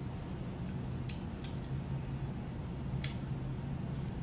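A few short, sharp wet smacks as sticky fingers are licked and rubbed after eating cotton candy: one about a second in, one shortly after and one about three seconds in. A steady low hum runs underneath.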